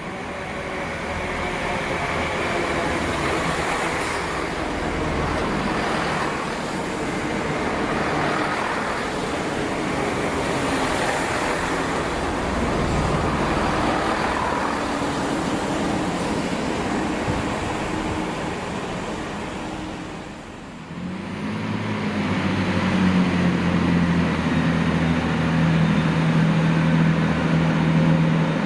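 Diesel train running through the station, a broad rushing noise. After a short drop about two-thirds of the way in, a diesel engine runs with a steady low hum.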